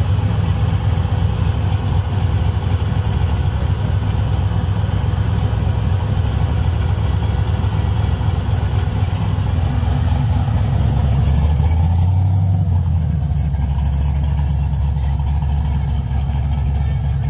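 1970 Chevrolet Chevelle's engine idling with a deep, steady rumble, then pulling away after about eleven seconds, its sound changing and fading as it drives off.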